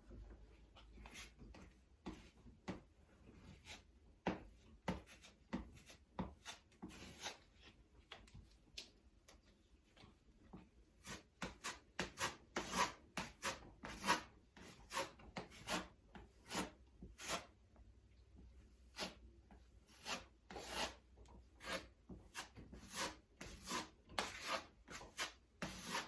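Putty knife scraping across drywall in short, irregular strokes, spreading and feathering a coat of spackle over patched holes; the strokes come thicker and louder in the second half.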